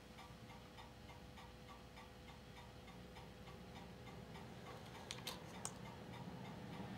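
Faint steady hum of an Ania 5 filmstrip projector with a light, even ticking about four times a second. A little past halfway come three or four sharp clicks as the filmstrip is wound on to the next frame.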